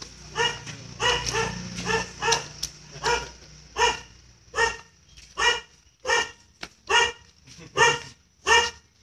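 A little dog barking over and over at an even pace, a high-pitched bark roughly every three-quarters of a second, about a dozen in all.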